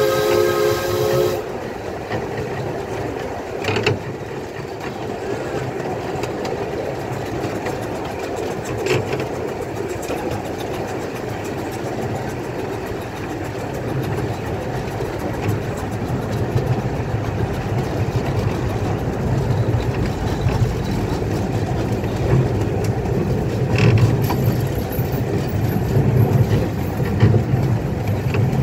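Miniature steam locomotive's chime whistle sounding a multi-note chord that cuts off about a second in, then the steady rumble of the small train running along the track with a few sharp clicks over the rails.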